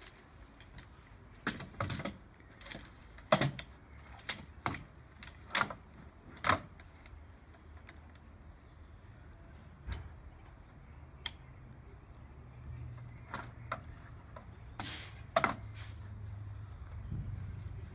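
Sharp clicks and clacks of a tripod being unfolded, its legs spread and their locks set, coming in scattered bursts. A low rumble builds up in the last few seconds.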